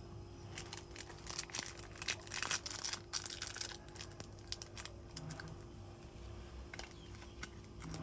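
Packaging crinkling and rustling as it is handled: a dense flurry of crackles in the first half, thinning to scattered clicks later, over a faint steady hum.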